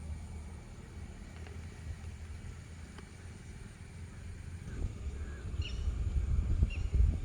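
Low wind rumble on the microphone, growing louder in the second half, with a series of short bird calls from about five and a half seconds in.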